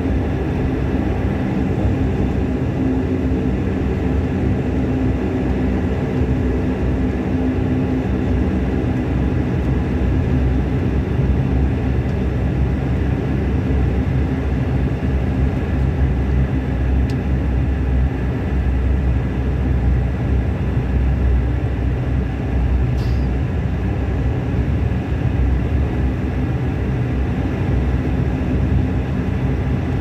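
Cabin noise of a Bombardier Q400 on the ground after landing: its two Pratt & Whitney PW150A turboprop engines and propellers running steadily, a low rumble with a constant hum.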